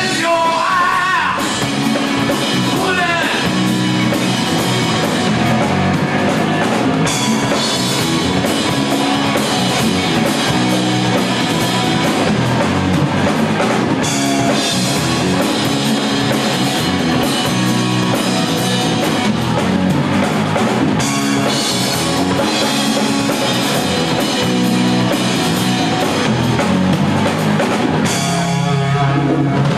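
Rock band playing live: electric guitar, bass and drum kit, with a sung vocal line near the start.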